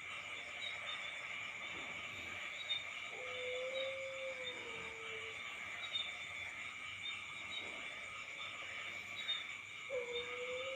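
Steady night chorus of crickets or similar insects. About three seconds in, a single low whistle-like tone holds for about two seconds and drops at the end; a second one starts near the end. This tone is the unexplained 'strange sound'.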